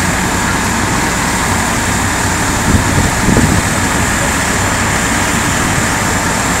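Parked fire engines' engines running steadily, a constant engine noise, with a brief louder bump about three seconds in.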